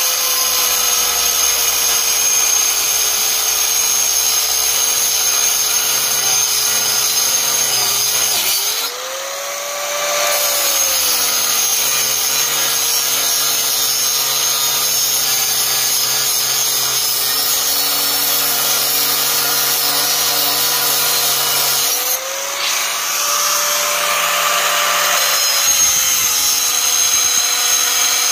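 Corded angle grinder cutting through the steel diagonal struts of a car seat frame, its motor whining steadily under load. The whine rises briefly in pitch twice, about nine and twenty-two seconds in, as the load on the disc eases.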